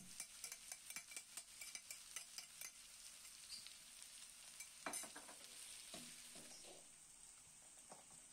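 Faint sizzling of spice paste frying in oil in a wok, with light scraping clicks from a metal slotted ladle stirring it, most of them in the first three seconds and one sharper knock about five seconds in.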